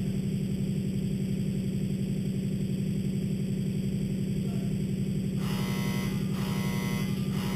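A machine running with a steady, loud, low buzzing hum. About five and a half seconds in, three short rasping, hissing pulses join it.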